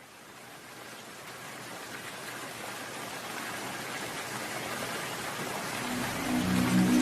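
Steady rain, fading in from silence and growing gradually louder. Music with held notes comes in about six seconds in.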